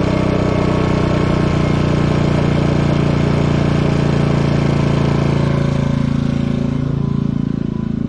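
Portable generator engine running steadily. About six seconds in, its pitch wavers and shifts and it settles slightly quieter.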